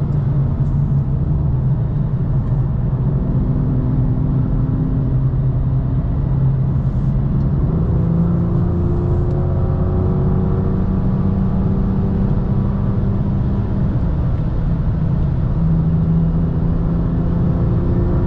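BMW M2's straight-six engine running at easy part throttle on a cool-down lap, heard onboard. Its note climbs slowly through the middle and eases off again near the end.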